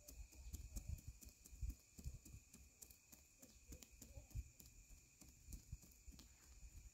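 Near silence: a faint steady insect drone with scattered soft, irregular knocks and clicks.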